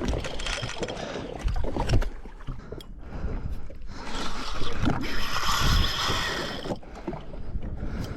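Wind and water noise around a jet ski at sea, with a louder hiss for a few seconds in the middle.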